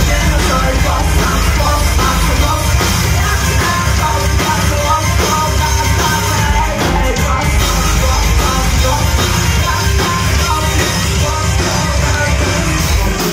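Live rock band playing loud: distorted electric guitar, drums and vocals, heard from within the crowd with a heavy, booming low end.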